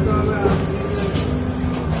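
Scania CityWide low-floor bus's natural-gas (CNG) engine running, a steady low rumble heard from inside the passenger cabin as the bus drives.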